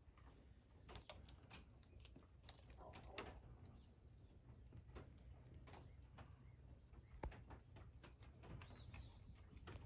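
Near silence: faint outdoor ambience with a low rumble, a faint steady high tone and scattered soft clicks, one sharper click about seven seconds in.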